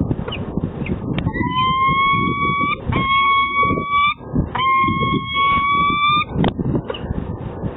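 Peregrine falcon giving three long, drawn-out wailing calls, each one steady and rising slightly at the end, over a low rumble.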